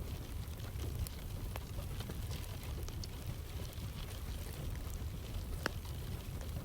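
Rain and a crackling wood fire mixed together: a steady hiss of rainfall over a low rumble, with a few sharp fire pops, the loudest near the end.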